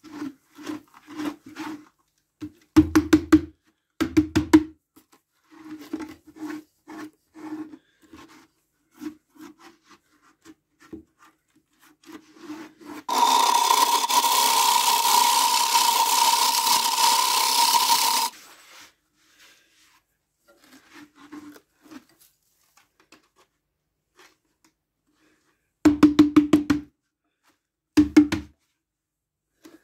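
Turning tool cutting a spinning alder form on a wood lathe: a run of short cutting strokes with a low tone, the loudest about three and four seconds in and again near the end. In the middle comes a steady, louder continuous cut with a high ringing tone that lasts about five seconds, then stops.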